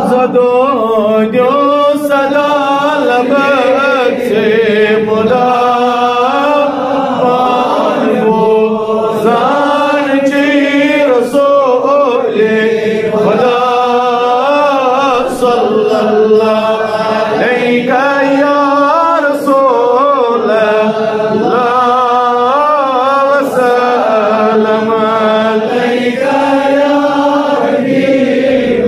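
Unaccompanied devotional naat chanting, sung as long melodic phrases with wavering held notes.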